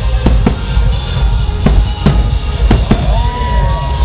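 Aerial fireworks bursting overhead: about six sharp bangs in four seconds over a dense low rumble and music. About three seconds in, a whistling tone rises and holds.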